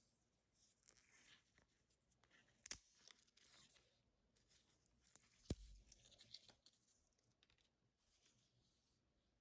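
Faint handling of packaging: rustling, scraping and tearing sounds, with two sharp knocks, the louder one with a dull thud about five and a half seconds in.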